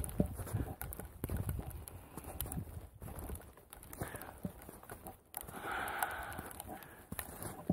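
Irregular knocks and taps close to the microphone, as hands handle things on the surface the camera rests on, over a low rumble.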